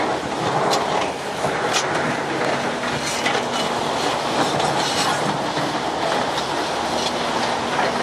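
Genie GTH-844 telehandler running while carrying an excavator's grapple claw: a steady mechanical noise with scattered metallic clanks and rattles.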